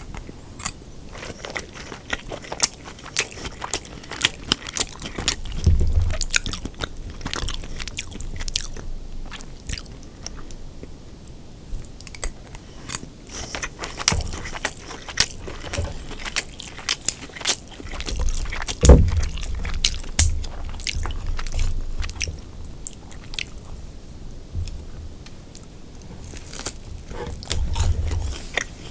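Close-up chewing and biting of crispy deep-fried sweet and sour pork, with sharp crackling crunches of the fried batter throughout and a few heavier bites.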